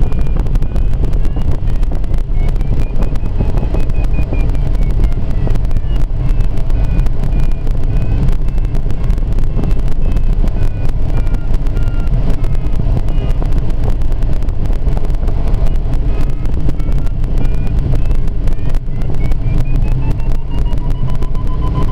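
Steady rushing noise of airflow in a glider cockpit, with a variometer's beeping tone sliding up and down in pitch as the glider climbs and sinks; the tone rises near the end.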